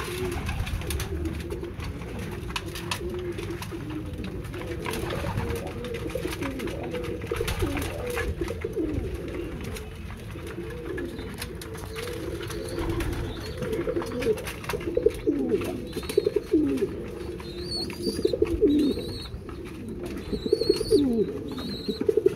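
Several racing pigeons cooing over and over, low bending coos overlapping one another, growing louder and more frequent in the second half.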